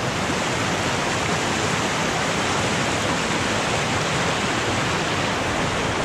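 Rushing river water, a steady, even hiss.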